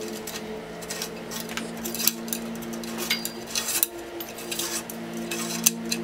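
Light metallic clicks and clinks of small parts and tools being handled on a carbon road bike frame, with a few sharper clicks about two seconds in and near the end, over soft steady background music.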